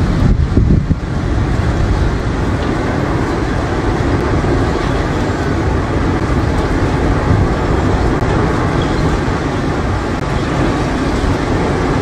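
Tornado winds blowing hard: a loud, steady rushing noise with a deep rumble.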